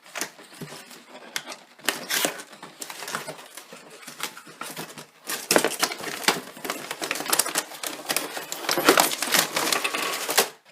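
Cardboard shipping box and packing being pulled open and handled: a dense run of rustling, scraping and clicking, busier and louder in the second half.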